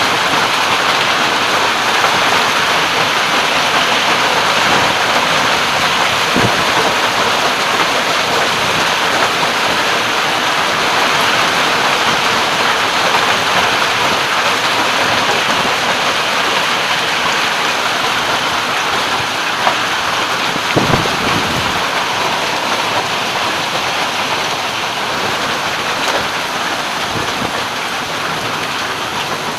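Heavy downpour pouring steadily, with a few sharp knocks about two-thirds of the way through; it eases a little near the end.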